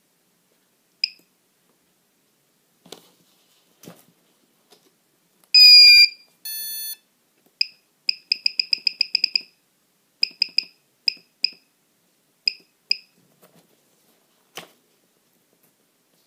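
Beep tones from a brushless outrunner motor, sounded through its windings by a HobbyKing F40A ESC flashed with SimonK firmware. There is a loud held beep and a second shorter one about six seconds in, then a fast run of short chirps, about eight a second, and scattered pairs of chirps after it. A few sharp clicks come in between.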